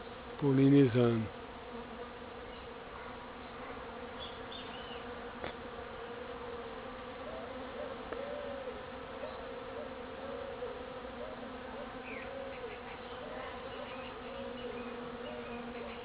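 Bees buzzing steadily as they forage on and pollinate jabuticaba blossoms: a continuous low hum of many wings that wavers slightly in pitch.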